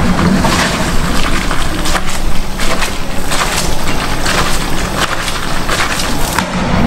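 Spaghetti in tomato sauce sizzling and crackling in an aluminium sauté pan over a high gas flame, while the pan is tossed and shaken on the burner to bind pasta and sauce.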